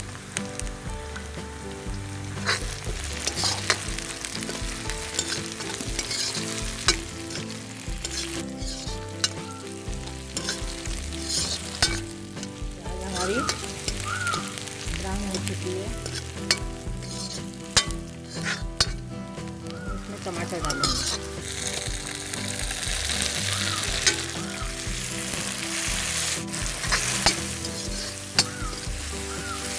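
Chopped onion and chillies frying in hot mustard oil in an iron kadhai, sizzling steadily, with a steel ladle stirring and clinking against the pan. The sizzle grows louder and brighter about two-thirds of the way in, as chopped tomatoes go into the hot oil.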